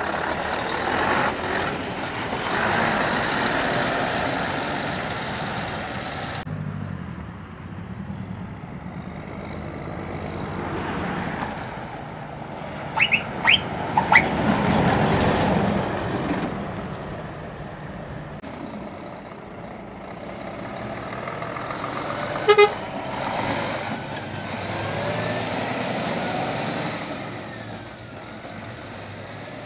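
Heavy lorries driving past one after another, their diesel engines running. There are a few short horn toots about halfway through and another sharp toot about two-thirds of the way in.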